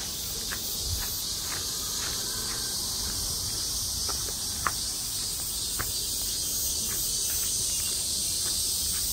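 A steady, high-pitched chorus of insects in the summer trees, with scattered soft clicks and one sharper click about four and a half seconds in.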